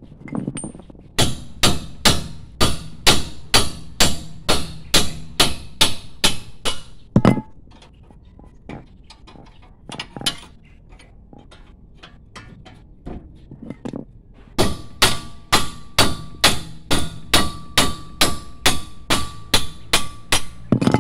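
A hammer striking the steel of a car's front brake and hub assembly in two runs of quick, even blows, about three a second, each lasting some six seconds. The blows in the second run carry a faint metallic ring.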